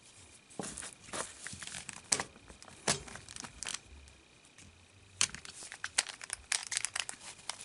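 Irregular clicks and crinkling of hard plastic being handled, with a quieter stretch in the middle.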